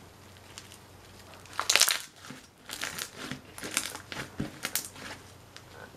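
Crunchy bead-filled slime being squeezed and pressed by hand. A loud burst of crackling comes about a second and a half in, then a run of small crackles and pops.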